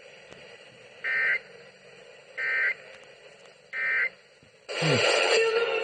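Emergency Alert System end-of-message tones over the radio: three short bursts of warbling two-tone digital data, about a second and a half apart, marking the close of the alert. Music starts near the end.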